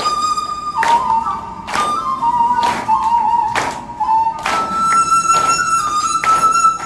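Korean transverse bamboo flute playing a high melody of held, sliding notes, with hand claps keeping time about once a second.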